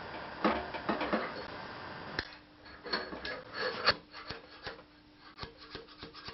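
Hand dent-pulling tool scraping and clicking against a thin sheet-metal panel: a quick run of rasping strokes in the first second and a half, then scattered sharp clicks and short scrapes.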